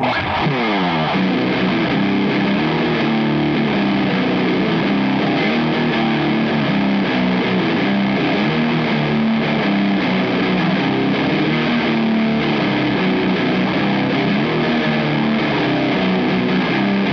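Electric guitar through a Catalinbread Carbide distortion pedal playing a heavy death-metal riff in a thick, gritty "chainsaw" distortion tone, opening with a sliding note and then running on steadily.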